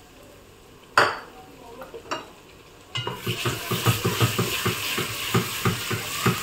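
Ginger-garlic paste sizzling in hot oil in a hammered metal pot, with a sharp knock about a second in. From about three seconds in it is stirred with a spoon, the sizzle growing louder and the spoon scraping the pot several times a second.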